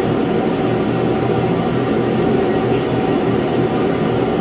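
Portable tank-fed shop heater running with a steady, loud roar.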